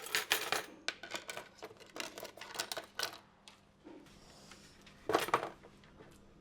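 Metal cutlery clinking and clattering in a rapid series of sharp clinks, with a louder clatter about five seconds in.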